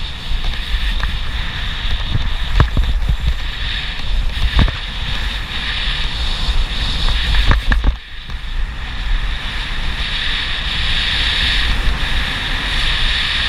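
Wind buffeting the camera microphone over the hiss of a downhill slide across snow, with a few sharp knocks from bumps, about three seconds into the run, again near four and a half seconds, and a quick cluster a little before the eight-second mark.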